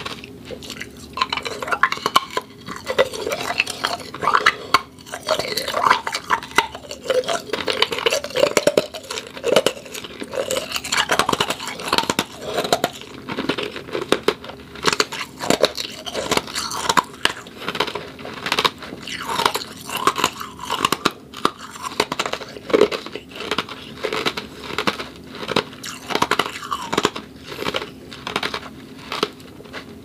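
Half-moon ice cubes being bitten and chewed close to the microphone: a steady run of crisp, irregular crunches, several a second.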